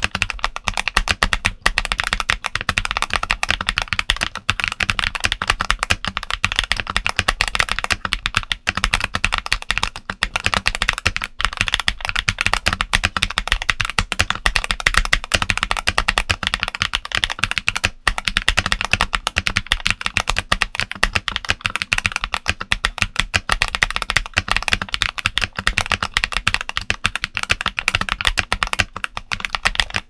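Fast continuous typing on a modded Redragon K617 60% mechanical keyboard with KBDcraft S² Engine linear switches and Cherry-profile Denim doubleshot ABS keycaps: a dense run of keystrokes with only a few very short pauses.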